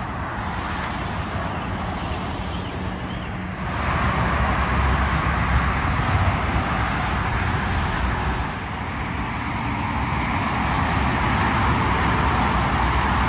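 Steady road traffic noise: a continuous wash of tyre and engine sound with a low rumble, getting louder about four seconds in.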